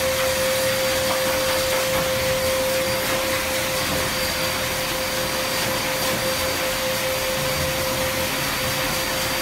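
Pet grooming blower dryer running steadily, blowing air through its hose into a dog's thick coat: an even rush of air with a constant whine.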